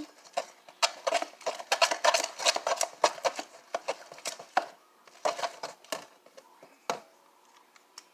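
A utensil clicking and tapping against a bowl while colour is mixed into glue for slime: a fast run of hard taps that thins to a few scattered clicks after about five seconds.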